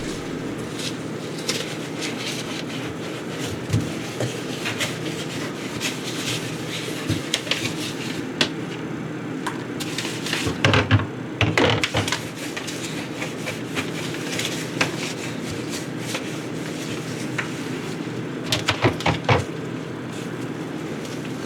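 Scattered clicks and knocks of household objects being handled and set down, with a cluster about halfway through and another near the end, over a steady low hum.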